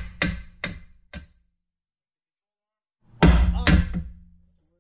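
Metal tool knocks against a car's front suspension while a new lower control arm is being worked into place: three sharp knocks in the first second or so, then a louder clank with a short ring about three seconds in.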